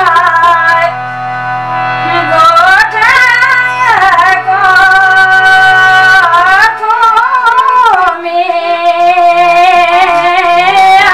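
A woman singing a Pahadi song solo, in long ornamented lines that slide between notes, ending on a long held note. A steady low drone sounds underneath and stops about two-thirds of the way through.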